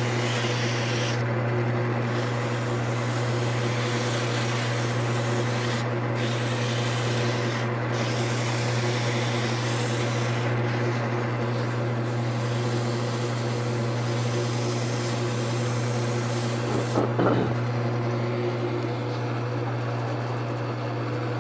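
100-grit sandpaper held by hand rubbing against a wooden ball spinning on a running wood lathe, over the lathe's steady motor hum, to take out the turning grooves. The sanding hiss breaks off briefly a few times, and near the end a short clatter comes before the rubbing fades, leaving the hum.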